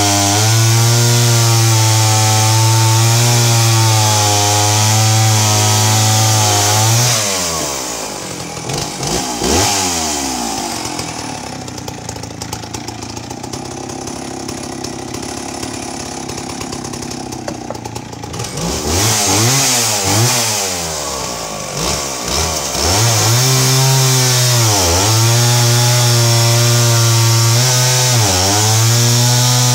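Stihl 041AV 61cc two-stroke chainsaw cutting through a log at full throttle, then dropping to a quieter idle for several seconds around the middle. Its revs swing up and down a few times before it cuts again, the note dipping briefly twice under load near the end.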